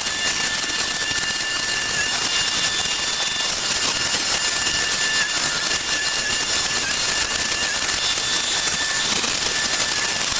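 Small engine-powered tool running steadily at high speed, a continuous loud rush with a thin high whine that wavers slightly.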